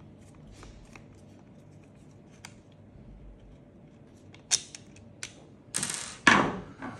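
Faint small clicks of a screwdriver turning a screw out of the plastic cocking assembly of a Steambow AR-6 Stinger II crossbow. A few sharper clicks follow, then a louder clatter near the end as the loosened screw and the crossbow are handled and the screw is set down on the wooden table.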